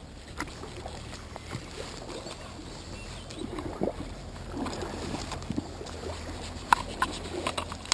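Shallow river water sloshing and splashing at the stony bank, with a few sharp clicks near the end.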